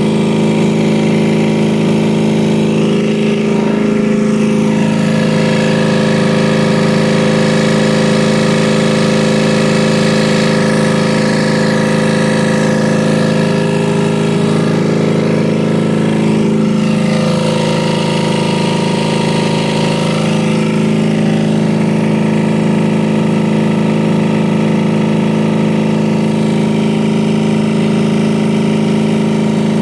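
Reconditioned Carrier 5H60 six-cylinder open-drive refrigeration compressor running steadily on its V-belt drive during a no-load test, an even low-pitched mechanical running sound.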